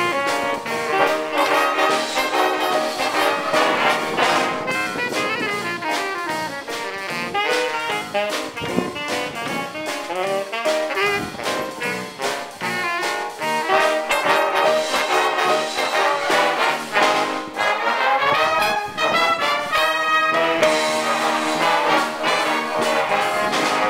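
Big band playing a jazz number: trumpets and trombones to the fore, with saxophones and a drum kit keeping time.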